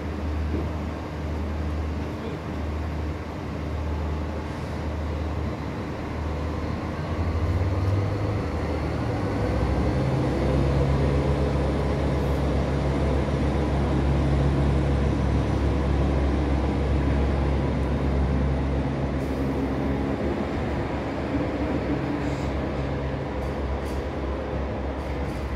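Diesel engines of Northern Ireland Railways Class 3000 diesel multiple units, a steady low drone. It grows louder about eight seconds in as one set throttles up and pulls out of the terminal platform, with a faint rising whine, then eases off a little near the end as it draws away.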